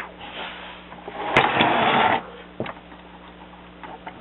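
Plastic LEGO bricks clicking and rattling as a built model is handled and its parts are worked. A louder rustling scrape starts about a second and a half in and lasts nearly a second. A faint steady electrical hum runs underneath.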